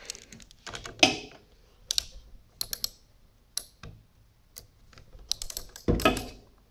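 Scattered clicks, clinks and knocks of hand tools being handled as a socket ratchet is picked up and fitted, ending with the ratchet set onto a bolt of the mower's plastic air-filter housing.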